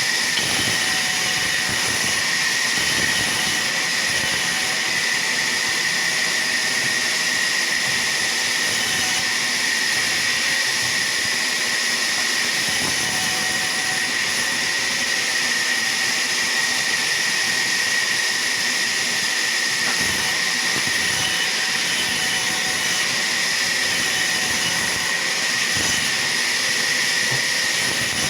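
Sawmill saw running steadily, a loud unbroken whine with a high steady tone over mechanical noise.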